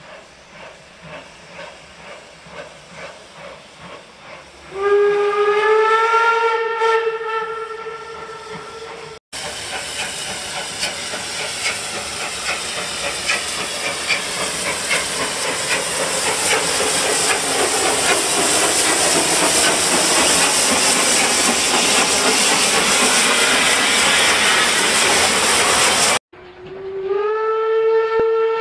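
Full-size steam locomotive sounds: steady chuffing at about two beats a second, then a steam whistle that rises slightly in pitch as it opens and blows for about four seconds. After a sudden cut comes a long, loud hissing rush of steam that cuts off abruptly, and a second whistle starts near the end.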